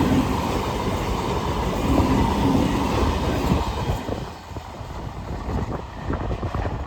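Indian train running past on a tight curve: a steady rumble and rattle of cars on the rails that drops away about four seconds in, leaving scattered clacks of wheels over the rail joints.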